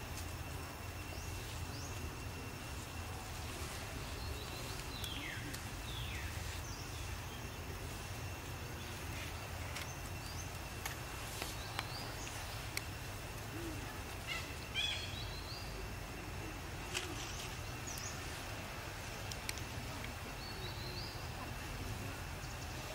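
Outdoor ambience: a steady low rumble under a faint, steady high tone, with short high chirping calls that fall in pitch, heard now and then in small clusters.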